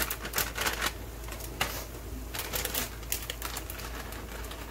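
Plastic bag crinkling as broccoli florets are shaken out of it into a pot, with irregular light crackles and taps.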